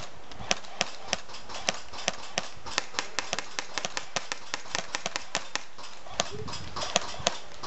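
Airsoft guns firing in a skirmish: a string of sharp, irregular cracks, a few a second.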